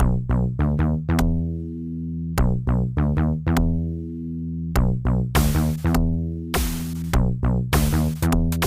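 Electronic background music: short plucked synth notes in a repeating rhythm over sustained bass tones, with noisy swishes added from about halfway in.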